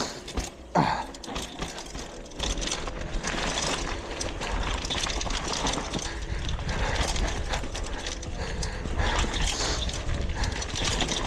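Downhill mountain bike run heard from a camera on the rider or bike: wind rumbling on the microphone, tyres on dirt and a steady clatter of chain and frame. A brief falling squeal about a second in.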